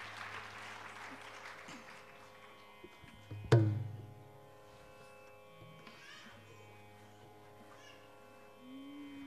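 Applause dies away over a steady Carnatic drone. About three and a half seconds in, one loud mridangam stroke rings out low, and near the end a held note comes in.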